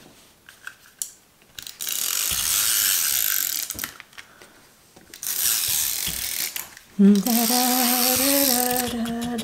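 Glue tape runner drawn along a paper page edge, its gears ratcheting in a dry rasp over three long passes.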